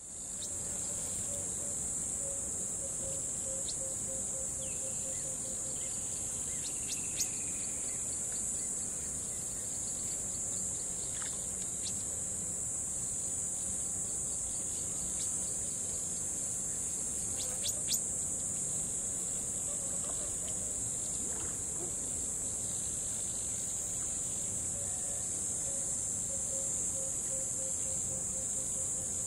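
Chorus of crickets trilling, a steady high-pitched shimmer that never lets up. A lower pulsing call repeats about four times a second near the start and again near the end, and a few brief chirps break in here and there.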